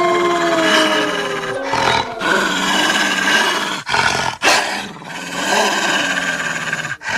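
Dire wolf creature sound effect made from wolf recordings: a drawn-out howl tailing off in the first second and a half, then a harsh, rasping snarl and growl with a few short breaks.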